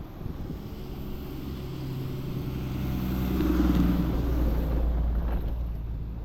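A motor vehicle driving past: its engine hum and road noise grow louder to a peak about three and a half seconds in, then fade away.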